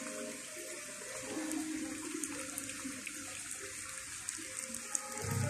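Water pouring and splashing steadily in a goldfish aquarium's waterfall tank, with faint background music; a louder low sound comes in near the end.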